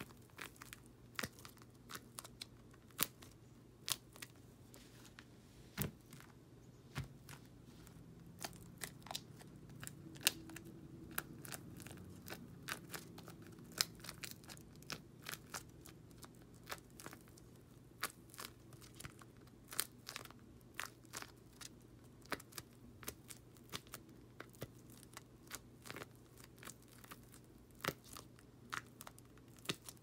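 Homemade paper-and-tape pop-it fidget toy being pressed with the fingers: a long run of faint, irregular crinkly clicks as the paper bubbles flip in and out. Made of paper, the bubbles give only a small pop rather than a real pop-it snap.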